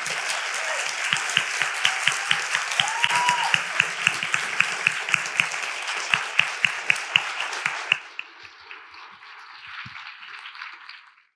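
Audience applauding, with one nearby pair of hands clapping out a regular beat of about three to four claps a second above the rest. About eight seconds in the applause drops sharply to a thinner, quieter sound that fades out.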